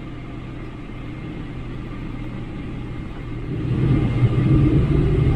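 Boeing 777-300 cabin rumble from the jet engines, swelling louder about three and a half seconds in as a rising engine whine sets in: the engines spooling up, as for the takeoff roll.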